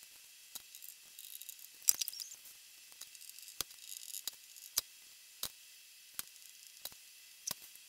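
Marker tip tapping dots onto a whiteboard: sharp single taps about two-thirds of a second apart in the second half, after a few fainter taps and scratches about two seconds in.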